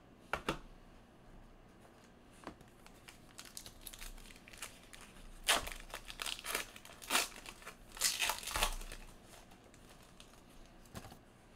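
A trading-card pack wrapper crinkling and tearing as it is ripped open: irregular crackles, sparse at first, then a dense run that is loudest about halfway through and tails off near the end.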